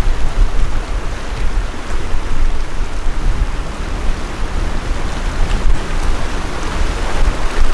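Wind buffeting the microphone in uneven gusts, over choppy lake water lapping against the rocks and logs of the shore.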